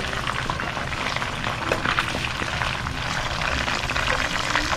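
Chicken drumsticks shallow-frying in hot oil with rosemary and garlic in a wok: a steady crackling sizzle with many fine pops.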